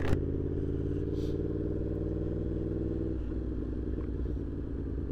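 A 2024 Yamaha MT-10's inline-four engine running steadily through a RaceFit Growler X exhaust while the bike is ridden. A short sharp click comes right at the start, and the engine note shifts about three seconds in.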